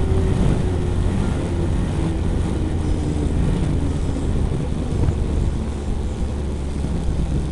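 High-revving engine winding down as the throttle is eased off, its pitch falling steadily from about 6,250 to about 4,350 rpm, over a steady rushing noise.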